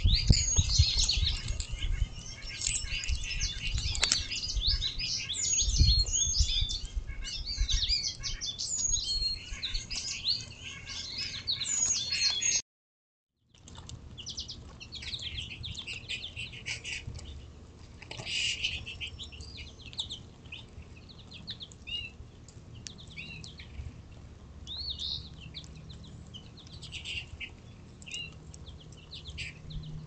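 Many small songbirds chirping and singing together in woodland, dense at first, with a few low thumps close by. The sound cuts out for about a second around twelve seconds in, and the birdsong comes back quieter and sparser.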